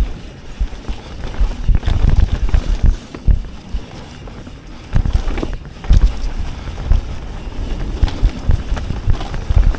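Mountain bike being ridden over rough trail: wind buffeting the microphone, with irregular thumps and rattles from the bike over bumps, the heaviest about two, five and six seconds in.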